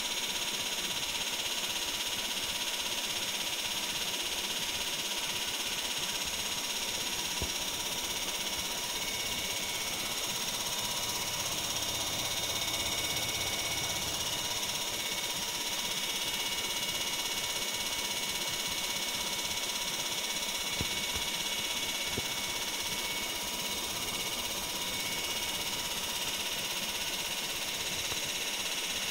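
Hitachi Package Bebicon 7.5 kW (10 hp) air compressor running steadily: an even mechanical noise with several constant high tones held throughout.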